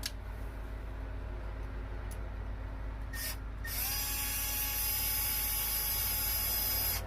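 Cordless drill-driver running at a steady pitch for about three seconds after a brief first trigger pull, unscrewing the old light-fixture mounting bracket.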